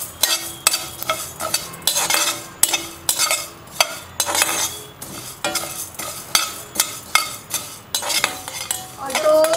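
Slotted metal spatula stirring and scraping coriander seeds as they dry-roast on low heat in an iron kadhai: repeated rattling scrapes of metal and seeds on the pan, about two or three a second.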